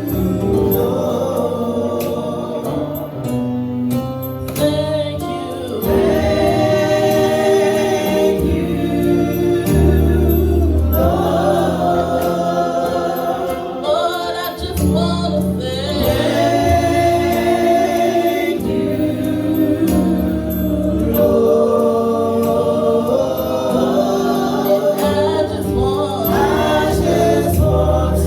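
Gospel choir singing with instrumental backing, a steady bass line under held, sung notes.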